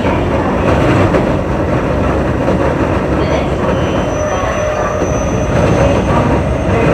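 Keio 8000-series electric train running at speed, with a steady rumble of wheels on rails. A faint, thin high-pitched wheel squeal rises midway.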